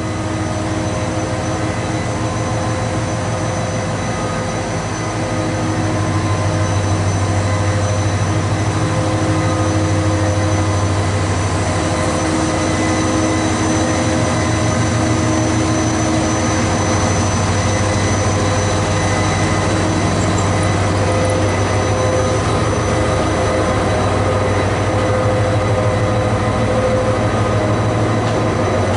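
Passenger train hauled by a diesel locomotive running through a station, with a steady engine drone over the rolling noise, growing louder about six seconds in.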